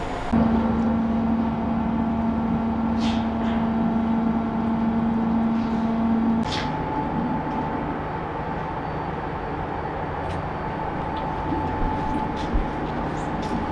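Steady drone of a car ferry's engines and machinery, heard on board. A strong low hum gives way to a higher steady hum about six seconds in.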